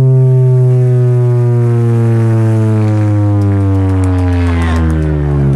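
Competition car sound system blasting a loud, distorted bass tone that glides slowly down in pitch, a descending test sweep played for an RTA sound-pressure measurement.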